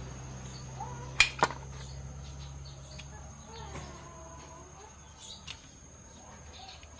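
Two sharp metallic clicks about a quarter second apart, a little over a second in, as a small drum-brake adjuster part is handled and greased. A few fainter clicks follow, with faint chirps over a low steady hum.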